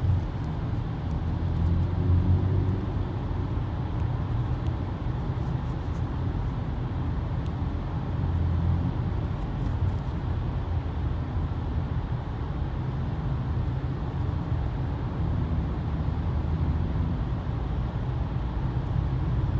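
Steady low road and engine rumble from inside a moving car's cabin, driving through a highway tunnel.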